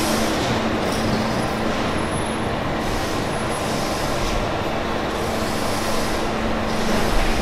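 Steady machine noise: an even hiss with a constant low hum underneath.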